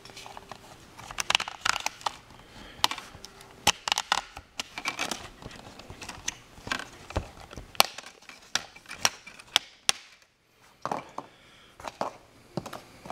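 Plastic screen bezel of an ASUS 1025c netbook being pried off with a plastic card. Its retaining tabs let go in a run of irregular clicks and cracks, with a short pause about ten seconds in.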